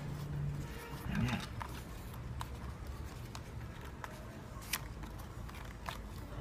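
Cardboard and plastic toy packaging being handled: scattered sharp clicks and light scrapes as fingers pry a toy car out of its cardboard box insert, over a steady low hum. A brief low murmur of a voice about a second in.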